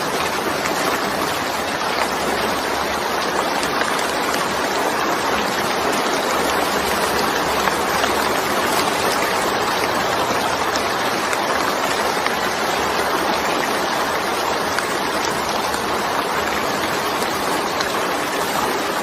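Steady, even rain falling without pause.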